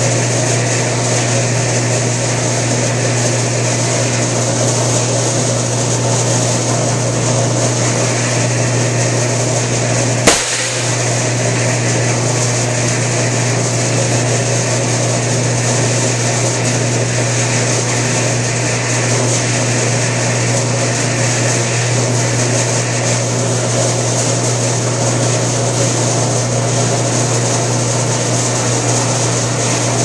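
Electric power edger (flanger) running with a steady motor hum while curved sheet-metal duct pieces are fed through its rollers to turn their edges; a higher noise comes and goes in stretches of a few seconds as the metal passes through. A single sharp click about ten seconds in is the loudest moment.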